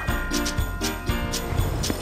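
Background music with jingle bells on a steady beat.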